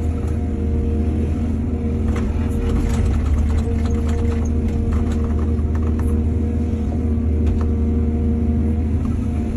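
Heavy diesel engine of an excavator running steadily under load, with a run of clattering knocks from about two to six seconds in.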